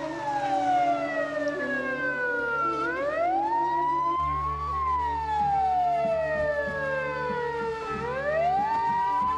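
Ambulance siren wailing: a long, slow fall in pitch followed by a quicker rise, the cycle coming round twice.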